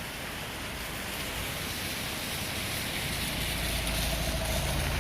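Storm wind and heavy rain, a steady rushing noise with wind buffeting the microphone in low gusts that build up about three seconds in.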